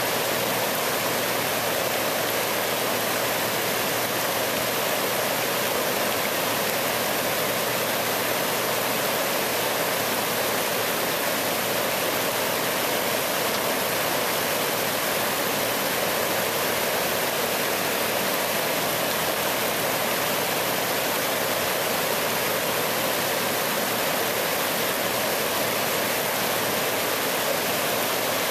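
River Tay white water rushing steadily over a shallow ledge of rapids.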